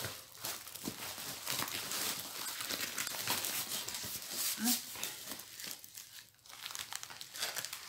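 Packaging being handled, crinkling and rustling in an irregular run of crackles.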